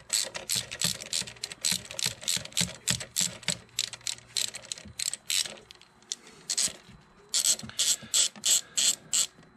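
Socket ratchet clicking as it winds an already loosened 16 mm engine-mount nut off its stud through a long chain of socket extensions, about four clicks a second. The clicks thin out past the middle, then a quicker run follows and stops suddenly near the end.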